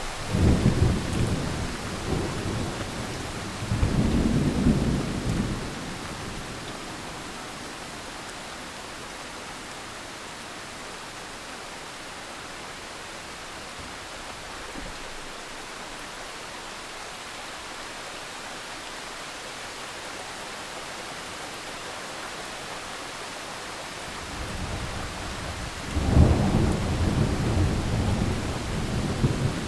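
Thunderstorm: steady rain hiss with rolling thunder, one peal at the start and another about four seconds in, a quiet stretch of rain alone, then thunder building near the end with a sharp crack-like onset and rumbling on.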